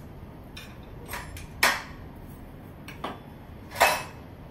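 Several short clinks and knocks of kitchen utensils and bowls being handled and set down on a wooden table. The two loudest come about a second and a half in and near the end, the last as a pizza cutter is put down.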